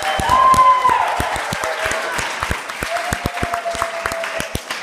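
Small audience clapping irregularly, with a shout or cheer from a voice in the first second, then the claps thinning out.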